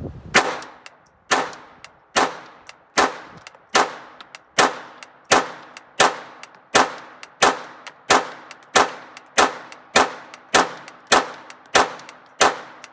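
Intratec Tec-22 .22 LR semi-automatic pistol firing a steady string of about eighteen shots, roughly one every 0.7 s, each with a ringing tail. The string ends in a failure to eject with rounds still in the magazine.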